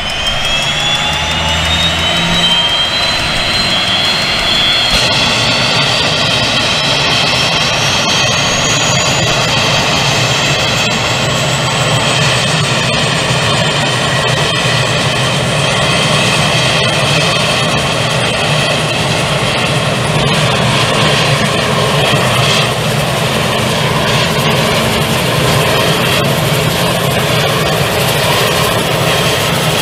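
Pratt & Whitney PT6A-67A turboprop engine starting and spooling up. A high whine climbs steadily in pitch, quickly at first and then more slowly, over a steady low hum from the engine and turning propeller.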